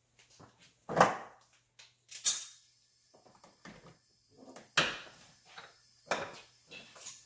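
Tools and parts being handled in an open engine bay: four sharp knocks and clatters about a second or two apart, with softer clicks and rattles between.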